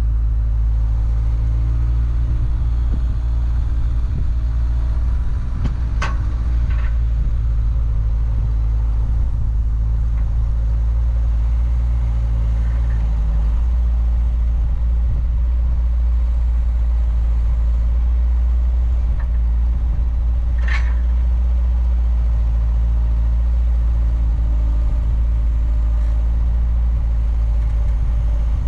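Tractor engine running steadily, a loud low rumble, with two brief sharp noises about 6 seconds and 21 seconds in.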